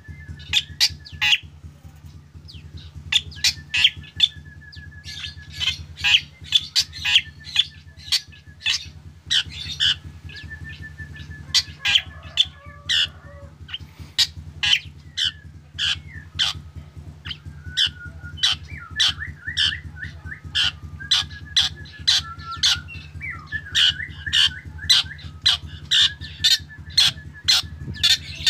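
Black drongo singing energetically: a fast, uneven run of sharp, high chips and clicks mixed with short warbling trills. A steady low hum runs underneath.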